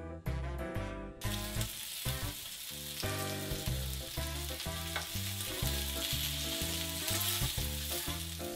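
Marinated pork neck slices sizzling and frying in a pan, with a steady hiss that starts suddenly about a second in.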